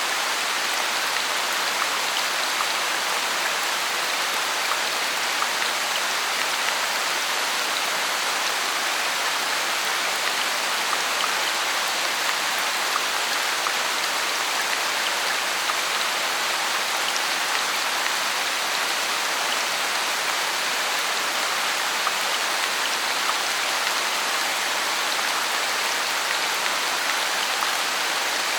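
Heavy rain falling steadily, with many small individual drips pattering through the constant hiss.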